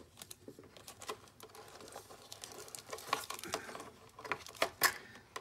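Unboxing handling noise: a sheet of packing paper rustling as it is lifted off a plastic tray, with small irregular clicks and taps of plastic and cardboard, one sharper tap near the end.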